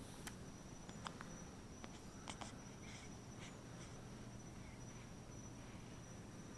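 Very quiet room tone with a faint steady high-pitched whine and a low hum, and a few soft clicks: one just after the start, one about a second in, and two close together a little after two seconds.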